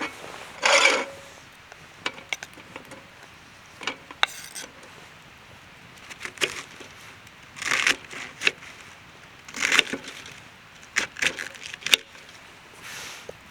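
Objects being handled by hand, likely wood and camp gear: scattered sharp knocks and clicks, with a few short scraping rustles.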